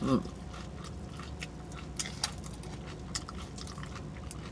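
Close-up wet chewing and lip smacking, a run of scattered small mouth clicks, with a brief voiced hum right at the start.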